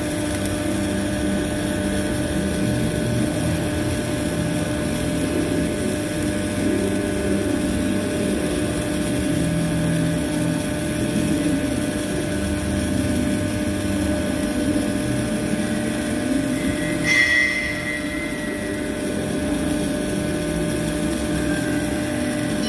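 A machine running with a steady drone and a constant hum. About two-thirds of the way through, a brief louder, higher whine cuts in.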